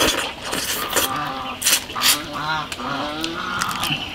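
A person eating noisily, slurping and smacking food, with short nasal, pitched hums between mouthfuls.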